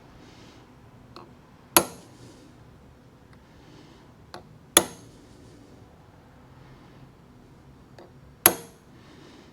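Three sharp metallic hammer blows on a Starrett prick punch set against a steel plate, a few seconds apart, each ringing briefly, with a faint tick just before each one as the punch tip is seated. The strikes deepen the punch marks so the centre points are easier to line up on for drilling.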